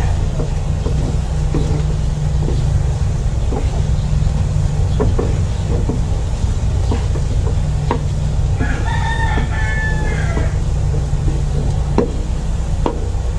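Wooden spatula stirring a thick, dry mixture in a nonstick frying pan, knocking and scraping against the pan about once a second, over a steady low hum. A rooster crows once, for about two seconds, a little past the middle.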